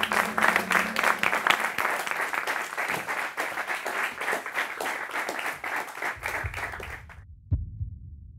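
Audience applause and clapping that stops abruptly about seven seconds in. It is followed by a low throbbing and a single thump, like a heartbeat sound effect.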